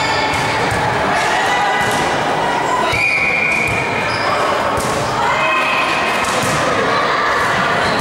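Busy, echoing sports-hall din: volleyballs thudding and bouncing on the hardwood floor, with players' and spectators' voices and shouts throughout.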